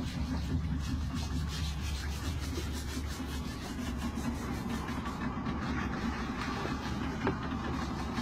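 Small boat's engine running with a steady low hum. For the first few seconds there is a repeated rubbing, scraping sound over it.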